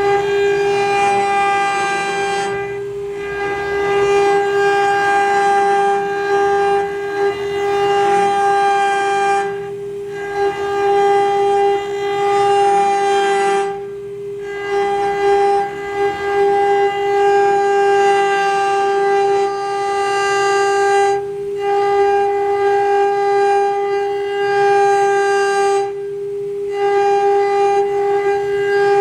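AccTek AK6060H metal CNC router's 3.2 kW water-cooled spindle milling aluminium: a loud, steady, high whine with a ringing, many-toned cutting sound on top. The upper ringing briefly drops away five times while the whine carries on.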